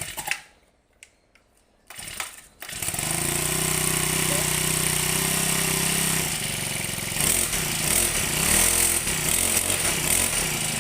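Four-stroke Yamaha grass-cutter engine starting up: after a short rasp it catches about a quarter of the way in and runs steadily. From about the middle its speed rises and wavers as the throttle is worked.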